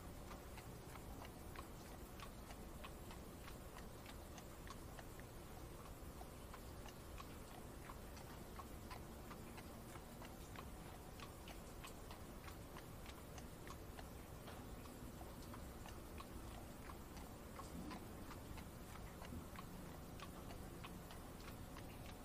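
Faint rain ambience: scattered raindrops ticking on the carriage over a low, steady rumble.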